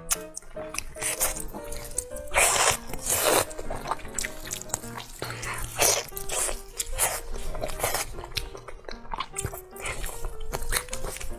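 Background music with a simple melody over close-miked eating sounds: biting and tearing into sauce-glazed meat on the bone and chewing it, with the loudest bites a little over two seconds in.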